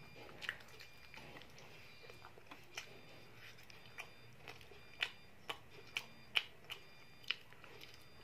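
A child chewing mouthfuls of chicken satay: sharp, irregular wet mouth clicks and smacks over a quiet background, coming more often between about five and seven seconds in.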